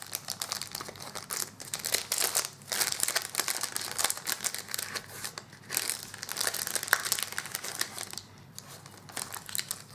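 Plastic packet of a sabiki lure rig crinkling and crackling as it is opened and handled, with some tearing. The crackling is dense for most of the time and grows quieter near the end.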